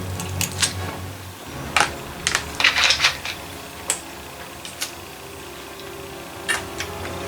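Eating noises: irregular clicks and crackles, with a denser cluster about two to three seconds in.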